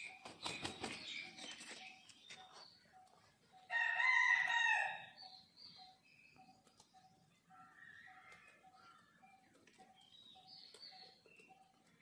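Aseel rooster beating its wings hard for about two seconds, then a short, loud crow about four seconds in.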